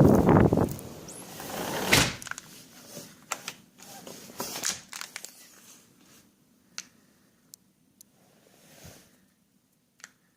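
Storm wind buffeting the microphone, then a door shutting with a sharp knock about two seconds in. After that it is quiet and room-like, with scattered small clicks and knocks that fade out.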